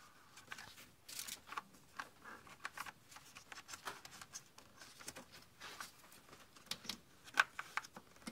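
Irregular small clicks, scrapes and rustles of a rubber hose and its fitting being handled and worked onto the plastic intake manifold of a 3.6 LFX V6 by hand.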